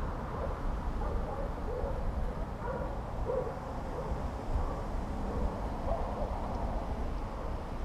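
A series of short, low-pitched animal calls, scattered and irregular, over the steady low rumble of riding a bicycle on a street.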